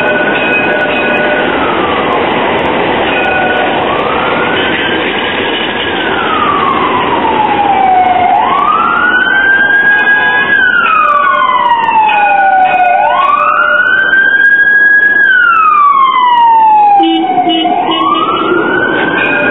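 An emergency vehicle's siren wailing, sliding slowly up and down about every four to five seconds, faint at first and growing loud from about eight seconds in as it comes nearer, over a steady haze of street noise.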